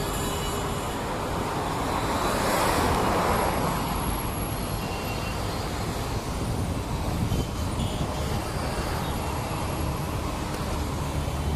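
Road traffic noise: a steady rumble of passing vehicles, with one vehicle swelling up and fading away about two to four seconds in.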